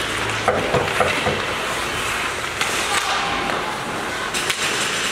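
Youth ice hockey game in a rink: steady scraping of skates on ice under arena noise, with several sharp clacks of sticks and puck.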